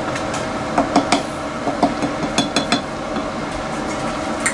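Metal utensil clinking against dishware: a scattered series of light taps, three close together about a second in, a quick cluster around the middle and one more near the end, over a steady hum.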